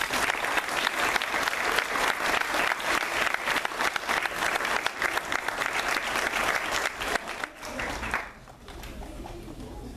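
Audience applauding, a dense patter of many hands clapping that stops fairly suddenly about eight seconds in, leaving a quieter murmur.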